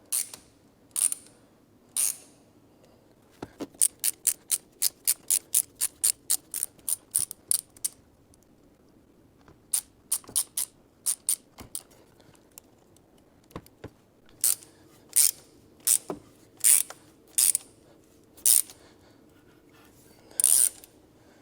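Ratchet wrench clicking in runs as it drives a thread-repair tap down into a blown-out spark plug hole in an aluminum cylinder head. A quick even run of about four clicks a second comes early on, then slower, scattered clicks with pauses between.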